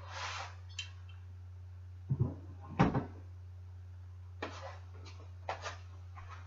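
Handling knocks: two sharp knocks about two seconds in, then a few lighter clicks and taps, over a steady low hum.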